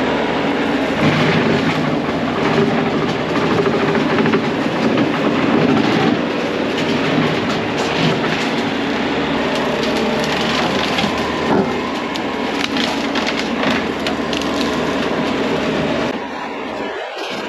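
Diesel heavy equipment running hard while clearing brush, with wood and saplings cracking and splintering over the engine in many sharp snaps.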